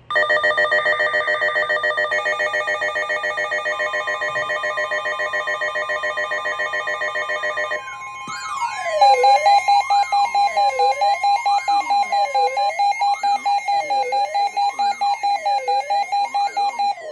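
Emergency alert alarm tones for a tornado warning. First comes a rapid pulsing multi-tone ring. From about eight seconds in it changes to a siren-like tone sweeping up and down about once a second, over steady tones.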